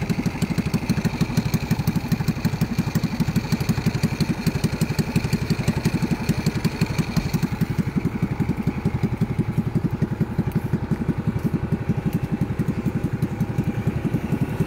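Small motorcycle engine running steadily while being ridden, a fast even beat heard up close from the rider's seat.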